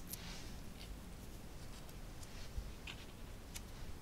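Faint rustling and a few light ticks of fingers handling and pressing paper pieces onto a stamped greeting card.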